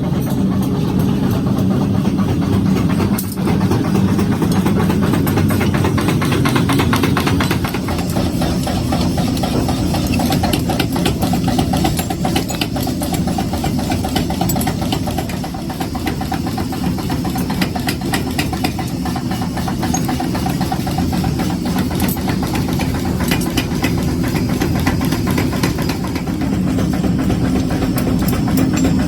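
Mechanical power hammer running steadily, beating with rapid, continuous blows.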